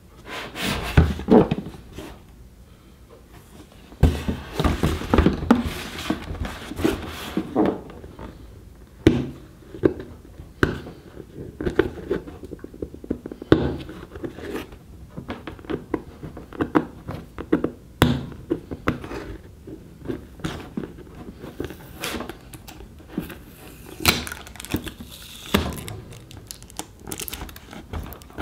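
Hands handling a cardboard product box: turning it over, setting it on a table and picking at the lid flap with a fingernail, giving irregular scrapes, taps and thunks of cardboard.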